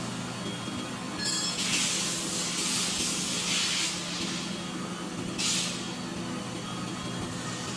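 A CNC machine running with a steady hum, broken by a loud spraying hiss that starts about a second and a half in and lasts about two and a half seconds, then a second short hiss about five and a half seconds in.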